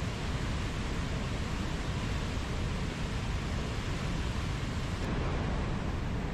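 Mountain stream rushing over rocks, a steady, unbroken wash of flowing water.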